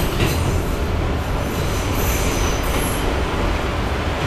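Inside a moving R160B subway car: a steady rumble of wheels on the rails, with a high-pitched wheel squeal for about a second around the middle.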